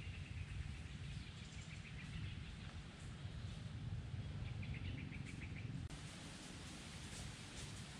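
Forest ambience: a steady low rumble with a small bird's rapid chirping trill, about two seconds in and again around five seconds. Near six seconds the rumble drops away and a fainter hiss remains.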